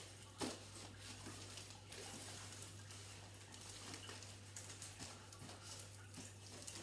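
Faint rustling and light tapping of cardboard armour plates as the wearer moves their arms, with one sharper tap about half a second in, over a steady low hum.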